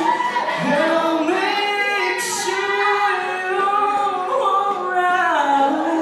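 Solo singing voice through a microphone and PA speakers, long held notes that slide from one pitch to the next. A brief burst of noise about two seconds in.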